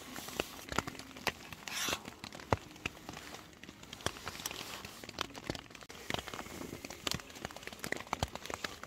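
Light drizzle ticking on tent fabric: scattered irregular taps over a soft hiss.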